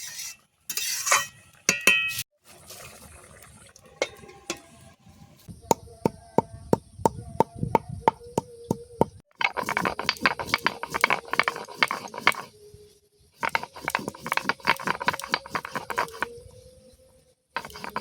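Whole spices for garam masala being crushed and ground by hand: a few clinks at first, then a run of separate sharp taps, then two spells of fast, rhythmic grinding strokes.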